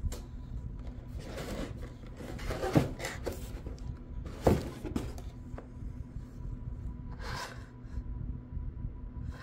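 Handling and unpacking of a cordless chainsaw and its packaging: rustling and scraping, with two sharp knocks about three seconds and four and a half seconds in, over a steady low hum.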